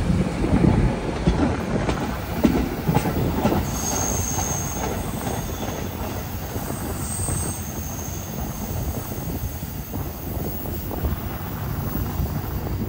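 R211S subway train departing along the Staten Island Railway, running steadily, with its wheels clicking over the rail joints in the first few seconds. A high, steady wheel squeal sets in about four seconds in and fades out near ten seconds.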